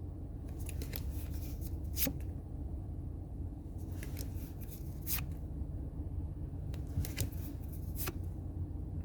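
Pokémon trading cards being flipped and slid one by one, a crisp flick or snap of card stock every second or so. A steady low hum runs underneath.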